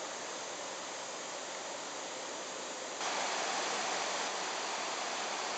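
Steady outdoor hiss, then about three seconds in a sudden change to the louder, steady rush of a shallow stream running over rocks.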